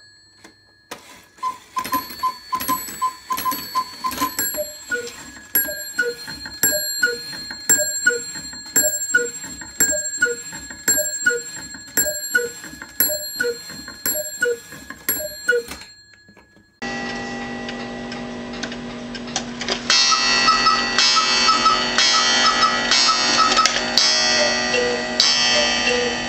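Antique quail cuckoo clock sounding the hour: a quick run of higher notes, then falling two-note bellows whistle calls about every 0.7 s, each with a click of the mechanism. About 17 s in the sound switches to another cuckoo clock, with a steady tone and, from about 20 s, a run of bright repeated musical notes.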